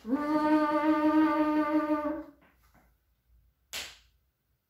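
A woman's voice holding a long, steady 'rrrr', the sound of the letter R, for about two seconds. A short breathy hiss follows near the end.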